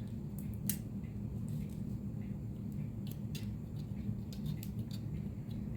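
Scattered light clicks and taps from handling PC case parts, at uneven intervals over a steady low hum.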